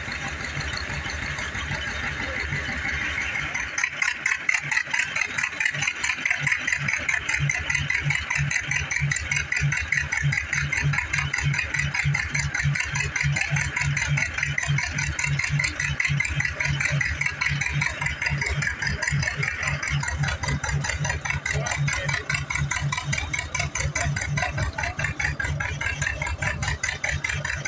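Large old flywheel stationary engine being spun over by a tractor through a flat belt to start it, with the tractor engine running: an even mechanical chugging of a few beats a second and a rattle.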